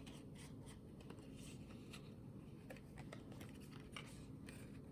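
Faint paper handling: scattered light taps and rustles as a paper cutout is set in place.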